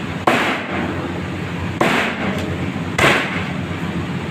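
Meat cleaver chopping raw chicken on a plastic cutting board: three sharp chops spread across the few seconds.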